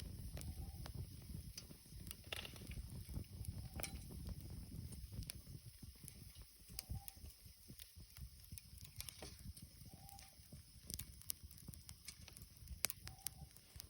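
Campfire crackling, with irregular sharp pops over a low rumble. Faint short calls recur about every three seconds.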